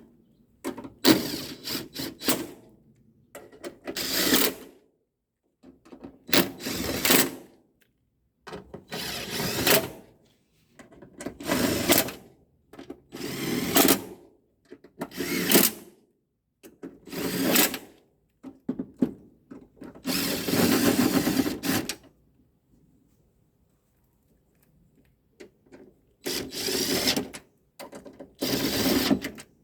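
Power drill-driver running in short bursts, about eleven runs of roughly a second each with one longer run of about two seconds, as bolts and screws are driven back into the tailgate.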